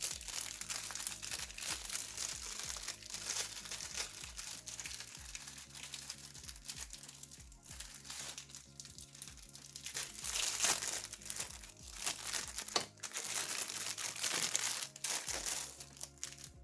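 Plastic packaging crinkling and crackling as a new laptop fan is handled and unwrapped, with soft background music underneath.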